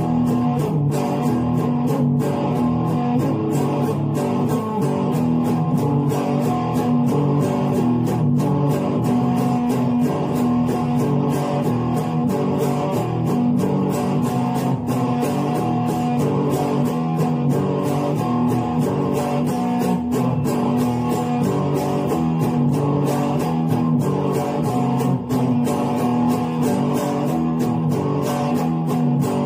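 Electric guitar playing continuous picked notes and chords over a steady beat.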